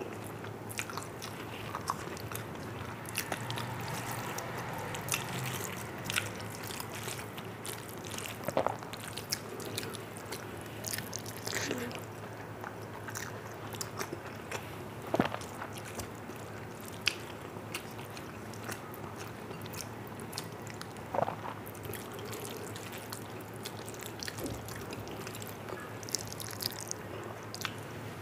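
Close-miked eating sounds of a person eating rice and dal by hand: chewing and lip smacks, with scattered sharp clicks over a faint steady hiss.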